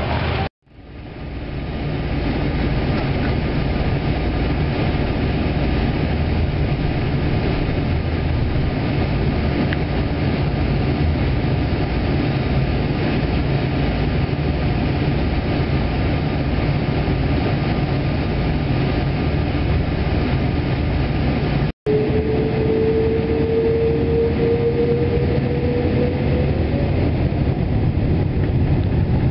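Steady rumble of a Boeing 777-200ER heard from inside the passenger cabin as it moves on the ground before takeoff. The sound cuts out briefly twice. After the second break, about 22 seconds in, a whine rises slowly in pitch for several seconds as the engines spool up.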